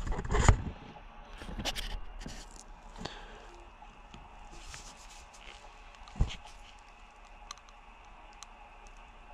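Handling noise from gloved hands working a curved plastic syringe of grease against the steel chainsaw bar at its sprocket-nose grease hole: light scrapes and clicks, a burst of rustling right at the start and a single sharp knock about six seconds in.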